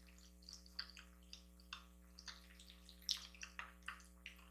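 Faint wet mouth sounds of someone chewing spaghetti: many small, irregular smacks and clicks, the loudest a little after three seconds in, over a steady low hum.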